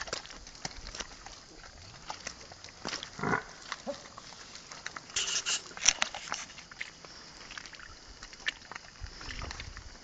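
Yoked pair of water buffalo walking on a muddy track, their hooves and the footsteps following them clicking and squelching in the mud. A short louder noise comes about three seconds in, and a harsher, hissy burst a little after five seconds.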